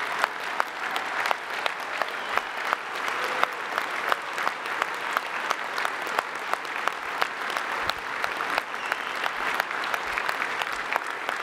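Large crowd of several hundred people applauding steadily, a standing ovation.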